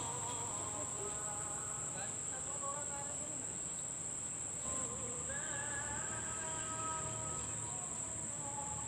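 Steady high-pitched drone of an insect chorus, holding one unbroken pitch throughout.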